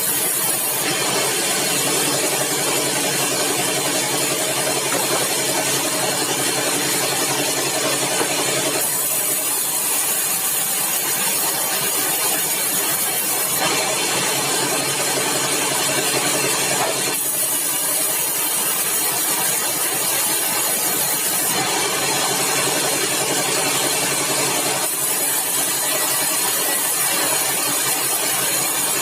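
Sawmill machinery running: a steady engine with a dense noisy wash over it. The sound shifts abruptly several times, about every four seconds.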